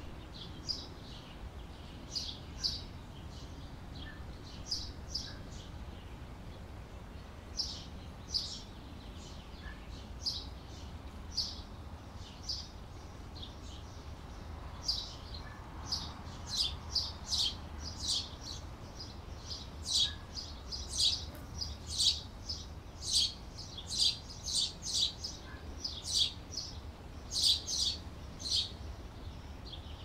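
Caged canaries chirping in short, high calls, scattered at first and coming thick and fast in the second half.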